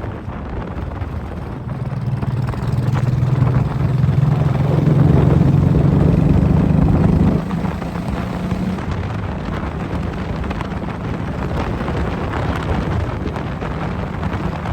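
An engine running with a steady low hum that grows louder about two seconds in and drops off abruptly about seven seconds in, with wind buffeting the microphone.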